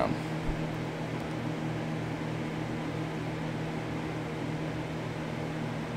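Steady background hum of a room: a constant low drone under an even hiss, like ventilation or machine noise.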